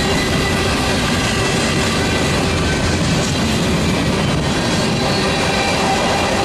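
Freight cars of a long freight train rolling past close by: steel wheels running on the rails in a steady, loud rumble, with a few faint steady high tones over it.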